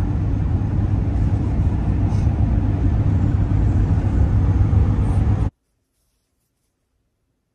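Steady low rumble of road and engine noise inside a pickup truck's cab at highway speed, cutting off abruptly about five and a half seconds in, followed by silence.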